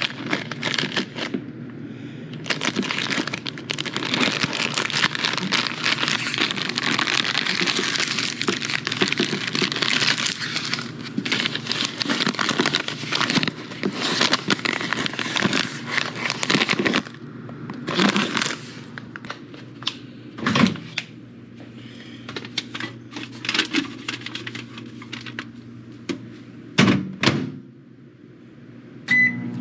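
Crinkling and rustling of a microwave pork rind bag being handled and unfolded, dense and continuous for about the first fifteen seconds, then sparser crinkles with a few sharp crackles. A single microwave keypad beep sounds right at the end.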